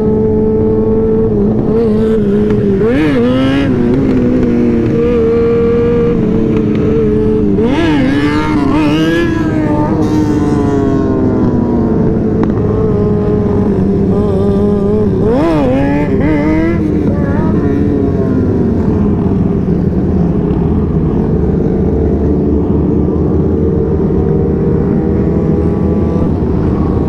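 Motorcycle engine running steadily at cruising speed, with other motorcycles close by revving up and down about three seconds in, again around eight to ten seconds, and near sixteen seconds, over a steady rush of wind and road noise.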